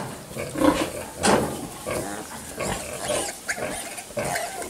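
Pigs at a nursing sow: a litter of piglets suckling, giving a busy run of short, irregular grunts and brief high squeaks.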